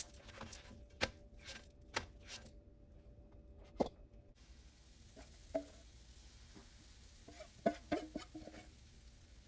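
A spatula scraping and clicking against a cast-iron griddle as it lifts a pancake off, then a sharper knock with a short ring as it is set down on a plate. Later a few more clinks and knocks of utensils on the griddle.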